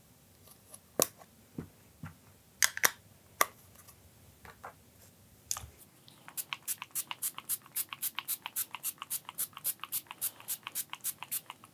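A few scattered clicks and taps as a plastic ink pad case is handled and pressed down, then a small finger-pump water mister spritzed rapidly, about five short sprays a second.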